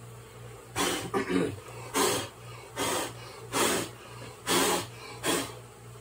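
A chisel scraping out honeycomb in repeated rough strokes, about six of them under a second apart, over a steady low hum.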